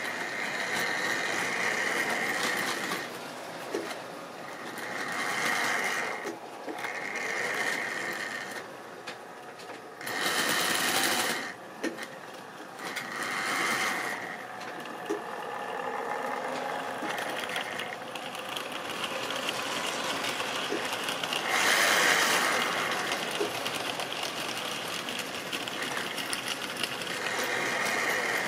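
Model railway trains running on sectional track: the whir of small electric locomotive motors that comes and goes as trains pass, loudest twice, with occasional small clicks from the wheels and wagons.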